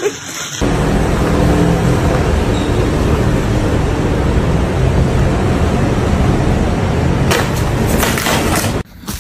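Paper package scraping and rustling along a hard floor as a cat drags it in its mouth: a steady, loud, rough rasp that starts abruptly about half a second in, with a few sharper crinkles near the end.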